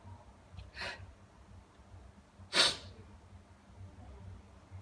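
Two short, sharp nasal breaths, sniff- or sneeze-like, about a second in and again near the middle, the second much louder.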